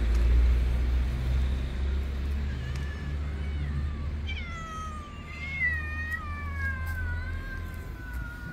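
Several stray cats meowing: short meows at first, then from about halfway a long, drawn-out meow sliding down in pitch. A low steady rumble sits underneath and fades near the end.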